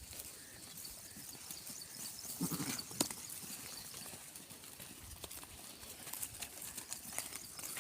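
Draft horses moving about: scattered hoof steps and knocks, with a brief low vocal sound about two and a half seconds in and a sharp knock just after it.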